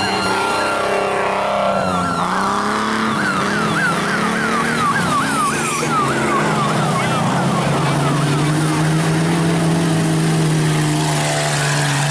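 A siren sweeping up and down rapidly, about two to three times a second, over running vehicle engines; the siren fades out about two-thirds of the way through, and an engine holds a steady note to the end.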